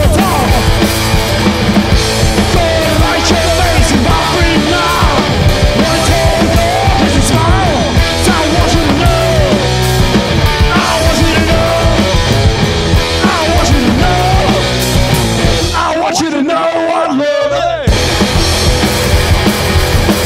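Loud live punk-blues garage rock played by a duo, with wavering melodic lines over heavy low end. Near the end the low end drops out for about two seconds, leaving only the higher parts, and then the full band comes back in.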